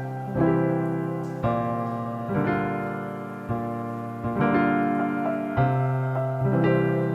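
Background piano music: slow, gentle chords struck about once a second and left to ring out.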